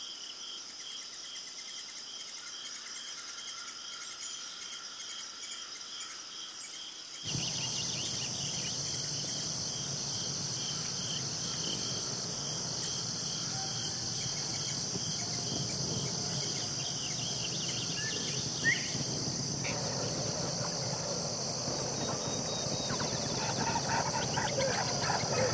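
Insect chorus: a rapid pulsing chirp at first, then about seven seconds in a louder, steady high-pitched insect drone sets in over a wider hiss. A single short rising note stands out a little past the middle.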